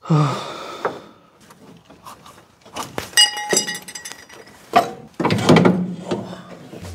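Metal tools and car parts clinking and knocking during work under a car's steering gear, with one clear metallic ring about three seconds in and a sharp knock near five seconds.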